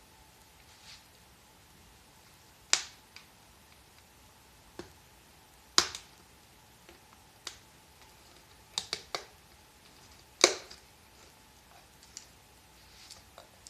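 Sharp clicks and knocks of small hard parts or tools being handled and set down, scattered and irregular. The loudest come about three, six and ten and a half seconds in, with a quick run of three just before nine seconds, over a faint steady hum.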